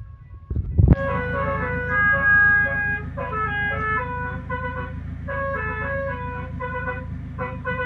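Basuri telolet horn sounding through two horn trumpets, playing a multi-note tune of held notes that step from pitch to pitch. It starts suddenly about a second in, over a steady low drone.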